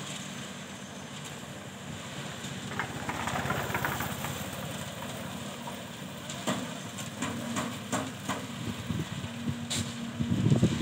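Construction machinery running at a building site: a steady engine rumble, with a louder noisy stretch about three seconds in and scattered knocks and clatter in the second half.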